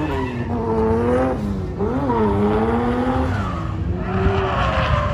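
A car engine revving hard at high revs, its pitch swinging up and down several times as the throttle is worked, with a rougher tyre-like noise building near the end.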